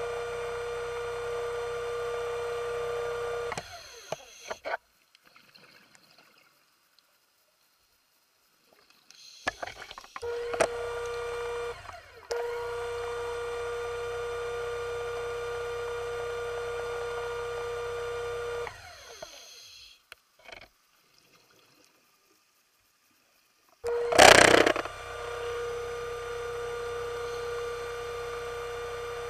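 Electric motor of an underwater scooter (diver propulsion vehicle) whining at a steady pitch, cutting out and starting up again several times with near-silent gaps between. A short, loud rushing burst comes just before the motor starts for the last time.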